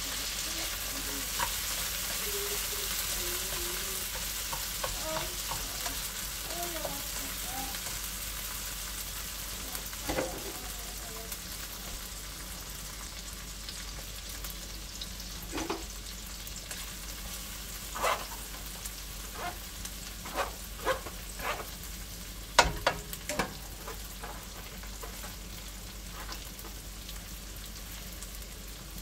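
Frozen peas, onion and garlic sizzling in hot oil in a non-stick wok, the hiss loudest at first and easing off. From about halfway there are scattered knocks and clatters of ingredients and a spatula against the pan.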